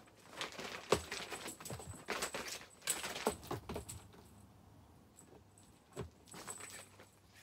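Cats pouncing and scrambling after a wand toy on a bed: irregular rustling, light rattling and soft thumps, thinning out about halfway through, then one thump as a cat leaps onto the cat tree.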